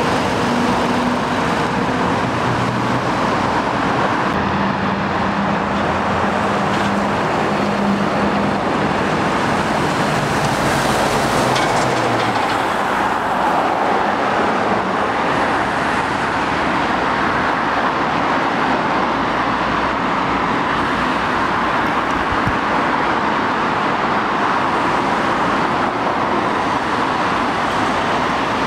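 Steady road traffic passing: cars, vans and lorries driving by with continuous tyre and engine noise. A lorry's low engine note is heard during the first several seconds and fades out.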